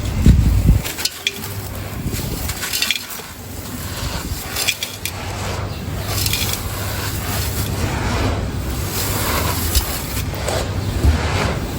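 Dried concrete-texture shape of sand, cement and gray dust being crumbled by hand, giving a crunchy, gritty crackle full of small sharp cracks, with a dull thump right at the start.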